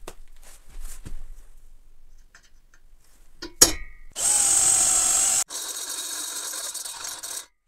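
Light knocks, then one sharp tap as a punch marks the spot, then a cordless drill with a step drill bit boring through square steel tube. The drilling starts about four seconds in, breaks off abruptly about a second later, and resumes quieter until just before the end.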